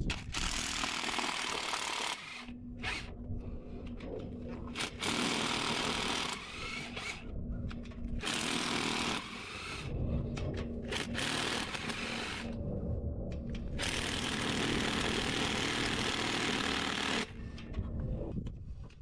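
Power tool spinning out bolts during engine teardown, running in about six bursts of one to three seconds each with short pauses between.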